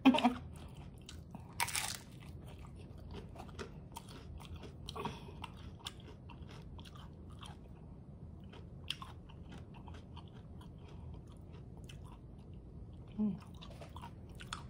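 Close-miked biting and chewing of a crunchy fried taco shell. One loud crunch comes about two seconds in, then many small crackling chews, with a short hum near the end.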